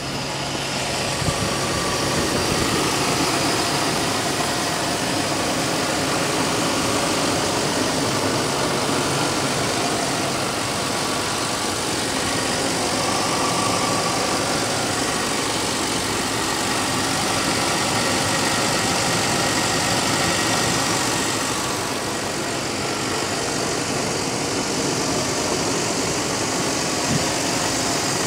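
Chevrolet Silverado's 5.3-litre LM7 Vortec V8 idling steadily.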